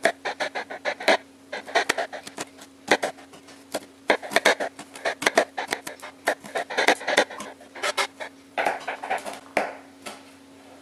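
Large kitchen knife coarsely chopping garlic on a cutting board: quick runs of sharp taps of the blade on the board, several a second, with short pauses between runs.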